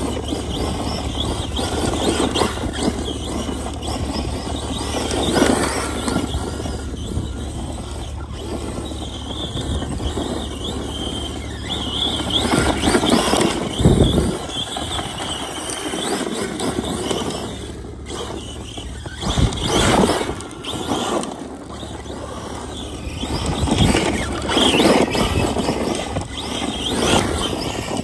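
Arrma Big Rock 6S RC monster truck's brushless electric motor whining up to speed in several surges, with tyres spinning and spraying dirt as it slides through drifts.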